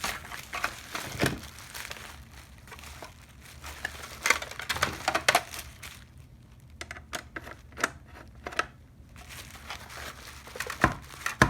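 Irregular clicks, scrapes and crinkly rustling from hands and a screwdriver working on a plastic car side-mirror housing while the two front bezel screws are taken out.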